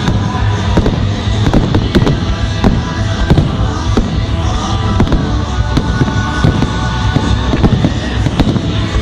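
Fireworks display going off continuously: many shells and crackers banging and crackling in quick succession, with rock music playing alongside.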